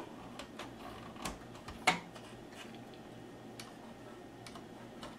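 Light, scattered clicks and taps of fingers handling the plastic and metal parts of a VCR's tape-loading mechanism while refitting the rubber loading belt onto the motor pulley, with one sharper click about two seconds in.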